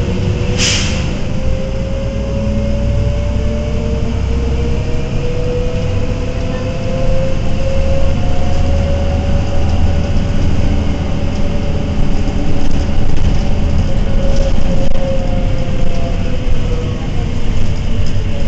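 Iveco Eurorider city bus heard from inside the cabin: the Tector diesel engine rumbling, with a whine from the ZF 4HP Ecomat automatic gearbox rising in pitch as the bus pulls away. The whine levels off and falls slightly near the end. A short hiss comes less than a second in.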